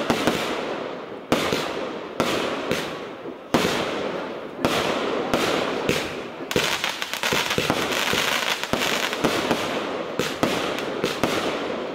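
Firework cake batteries firing in sequence: a sharp bang every second or so as shells burst, each trailing off in fizzing crackle while the stars fall.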